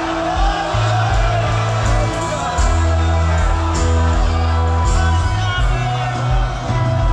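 Mizo gospel worship song: singing over a heavy, changing bass line, with occasional shouts from the congregation.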